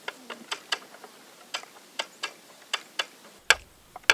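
Wooden spinning wheel clicking as it is worked: sharp, uneven clicks at roughly two a second, with two louder clicks near the end.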